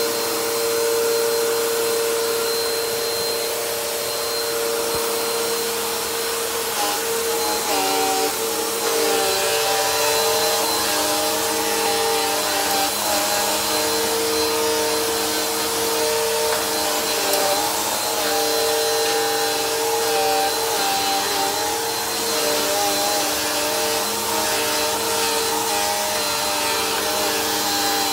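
Bissell PowerForce Helix upright vacuum cleaner running steadily, a motor whine over a rushing hiss. Its pitch wavers and dips from time to time.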